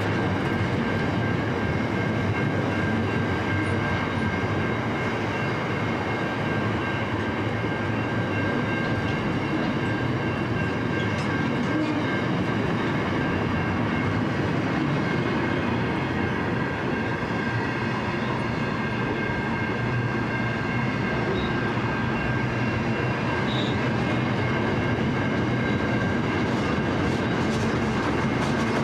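Container flat wagons of a long freight train rolling past at reduced speed: a steady rumble of steel wheels on rail with a thin, steady high whine over it.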